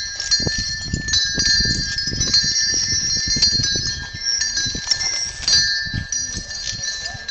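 Metal bells jingling and chains clinking as a line of chained elephants walks past.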